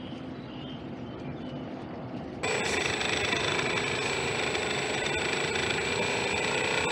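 Small RC model outboard motor driving the boat: a steady motor hum and whine with a thin high whistle above it. The sound is quieter at first, then abruptly louder about two and a half seconds in.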